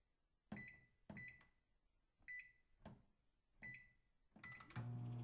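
Toy microwave keypad beeping as its buttons are pressed: five short, high beeps at uneven spacing, then a quick run of clicks and a steady low hum that starts near the end.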